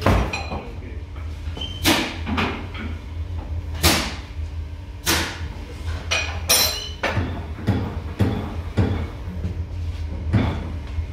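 Knocks and clunks of tools and parts being handled on a spindle moulder's cast-iron table during setup, about nine of them spread irregularly a second or two apart. A low steady hum runs underneath.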